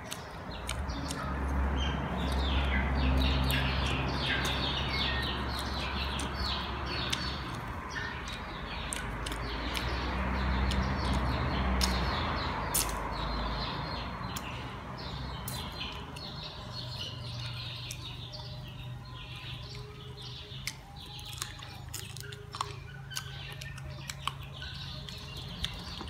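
Birds chirping in quick short notes, over a low rumble that swells and fades twice in the first half. Occasional sharp clicks and smacks of close-up chewing and finger-licking sound through it.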